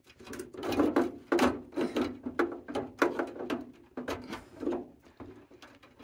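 Hands working wires, plastic connectors and a copper pipe inside the sheet-metal cabinet of a Rheem tankless water heater: irregular clicks, taps and scrapes.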